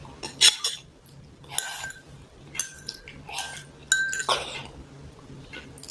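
Spoon clinking against a bowl of noodle soup while eating, a handful of short clinks, a couple with a brief ring.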